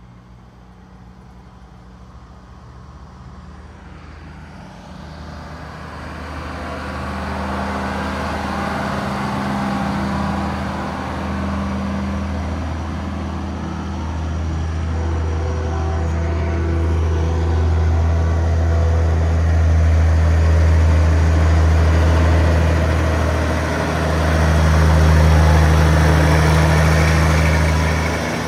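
Diesel semi-truck engines running at low speed as big rigs roll past in a slow procession, a deep steady rumble that builds over the first several seconds and then stays loud.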